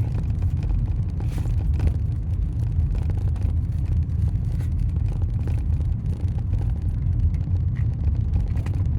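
Steady low rumble of a vehicle's engine and tyres heard from inside the cab while driving slowly, with many light clicks at irregular intervals throughout. The uploader calls this clicking an irritating noise.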